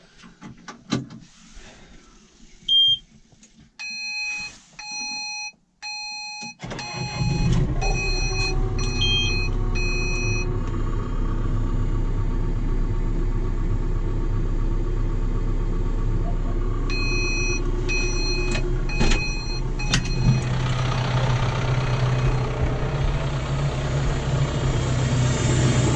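Electronic warning beeps at about one a second, then a John Deere tractor's diesel engine starts about six and a half seconds in and settles into steady running. The beeps sound again for a few seconds in the middle, and the engine grows a little louder near the end.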